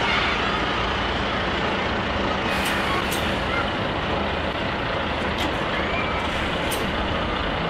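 Heavy-haulage truck and multi-axle low-loader trailer going slowly past, its diesel engine running steadily under tyre and road noise. There are four short, sharp hisses of air.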